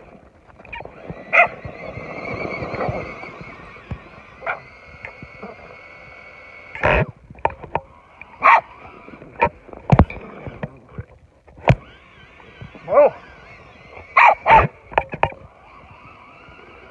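Whine from the electric motors and gearboxes of a stock Tamiya Super Clodbuster RC monster truck, which has two 540 motors. Sharp clicks from an old stick radio controller and a dog's short barks cut in repeatedly through the second half.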